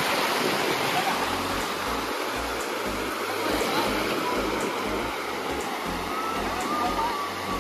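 Sea surf washing onto a beach: a steady rushing noise, with low, uneven rumbles underneath.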